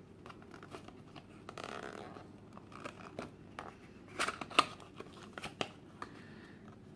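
Packaging of a small blind-box collectible figure being opened by hand: rustling and tearing with scattered clicks, and a few sharp snaps about four seconds in.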